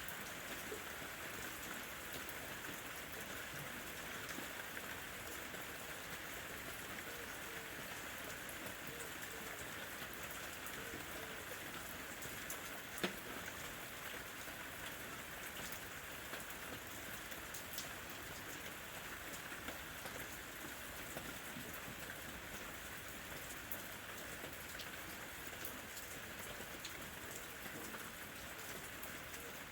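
Steady rain falling on a surface, an even hiss with scattered individual drop ticks and one sharper tap about 13 seconds in.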